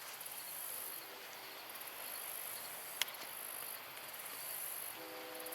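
Insects trilling in a high, thin pulsing buzz that switches on and off about once a second. A single sharp click comes about three seconds in, and a steady chord of several low tones starts near the end.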